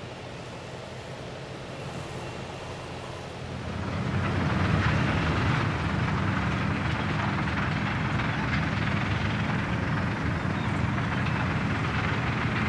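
A vehicle engine running with a steady low drone under broad mechanical noise. It fades up and becomes much louder about four seconds in.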